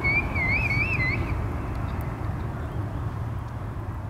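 Low outdoor background rumble with a wavering whistle over roughly the first second, the whole sound slowly fading down.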